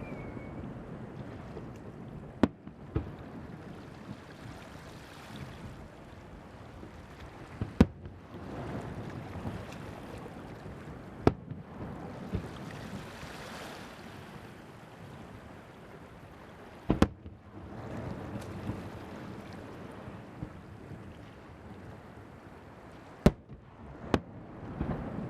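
Firework shells bursting over the sea: about six sharp bangs spaced several seconds apart, each followed by a rumbling echo, over steady wind and surf noise.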